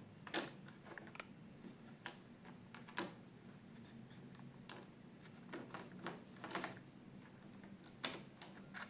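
Scattered light clicks and taps of a model-railway locomotive being handled and set onto the track rails, over a faint steady low hum.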